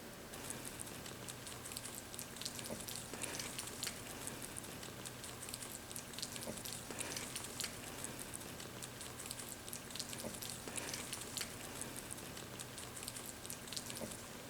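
Baby rabbits nibbling and chewing fresh wild greens: faint, rapid crisp clicking and rustling.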